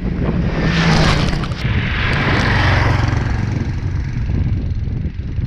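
Homemade snow vehicle's 20 hp engine with CVT running under power as the machine drives up close. A hiss of thrown snow swells over the engine sound a second or two in, then eases. Wind buffets the microphone.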